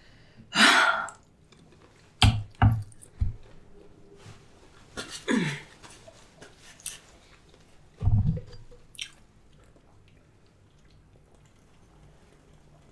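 Close-miked mukbang eating sounds from a seafood boil: chewing and wet mouth noises, with several sharp clicks and knocks. The sounds come in separate short bursts and stop after about nine seconds.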